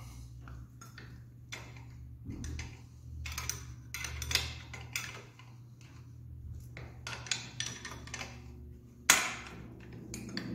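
Hand wrench clicking and clinking against the bolts and chrome exhaust pipes of a Harley-Davidson Sportster as the pipes are taken off, in irregular small metal clicks with one sharp clank about nine seconds in.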